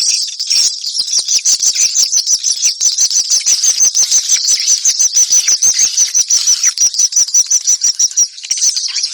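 Swiftlet lure call recording: a fast, steady run of high chirps, about five a second, over a dense crackle of clicks, breaking off briefly near the end. Played to draw swiftlets into a nest house.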